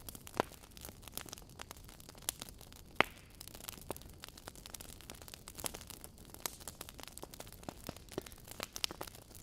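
Wood fire in a fireplace crackling: a steady run of small sharp pops and snaps over a faint hiss, with a louder pop about 3 seconds in.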